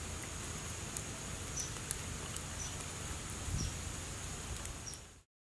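Outdoor ambience: a steady high insect drone over a low background hiss, with a short high chirp about once a second and a few faint ticks. The sound cuts off abruptly just before the end.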